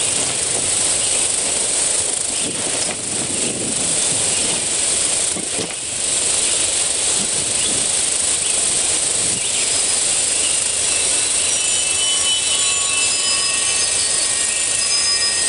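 A loud, steady rushing hiss, strongest in the highs. Faint high ringing tones come in over the last few seconds.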